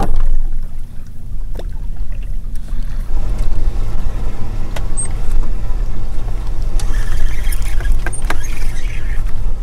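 Steady low outdoor rumble of wind and lake water around an open fishing boat, rising and falling in strength, with a few faint sharp clicks scattered through it.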